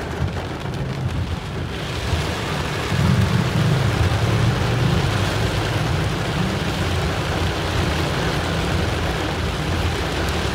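Heavy rain pounding on a car's roof and windshield, heard from inside the moving car, with a low rumble that grows louder about three seconds in.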